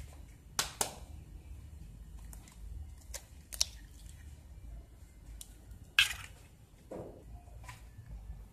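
An egg cracked and its shell pulled apart over a glazed clay bowl of flour: a handful of short, sharp clicks and taps, the loudest about six seconds in, over a faint low hum.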